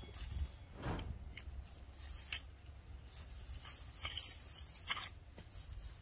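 Crisp rustling and tearing of leafy vegetation and green stems, in short, irregular bursts, with a brief low falling sound about a second in.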